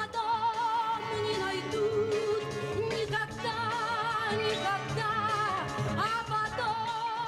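A song with long, held sung notes wavering in vibrato over an instrumental accompaniment.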